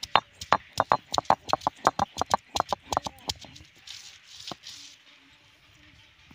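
A stone grinding roller knocks repeatedly on coconut pieces laid on an ammi, a flat stone slab, crushing them before grinding. The knocks are sharp and come about three a second, stopping a little over three seconds in, with one more knock about a second later.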